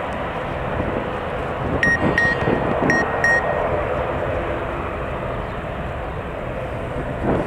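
Airbus A330-243's Rolls-Royce Trent 700 engines running at taxi power, a steady jet engine noise. Four short high beeps sound about two seconds in.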